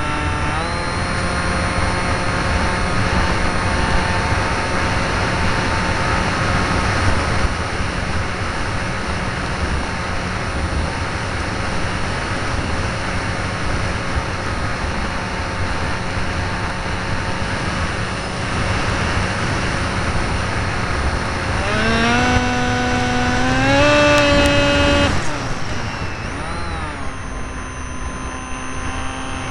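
Velocity II flying-wing model plane in flight, heard from a camera on board: a steady motor-and-propeller whine under heavy wind rush on the microphone. About 22 seconds in the whine climbs in pitch and gets louder, holds, then drops away about three seconds later.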